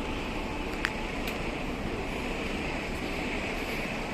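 Steady wind noise buffeting the microphone outdoors, with a couple of faint sharp clicks about a second in.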